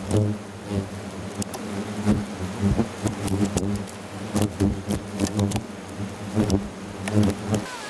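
Wasps buzzing around a nest being harvested, a steady low drone crossed by repeated sharp knocks and rustles. The buzz cuts off suddenly near the end.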